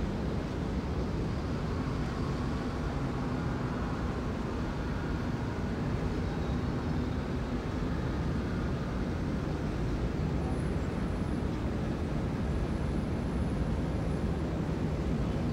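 Steady city traffic noise rising from the roads below, with wind rumbling on the microphone.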